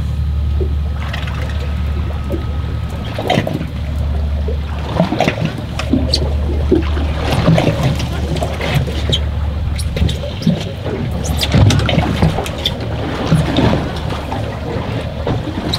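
Water sloshing and trickling against the hull of a drifting fishing boat, with a steady low hum and scattered knocks and clicks that grow busier from about five seconds in.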